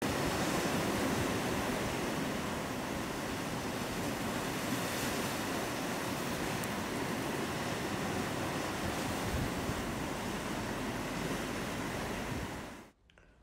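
Sea waves breaking and washing over a rocky shore, a steady rushing surf that fades out sharply near the end.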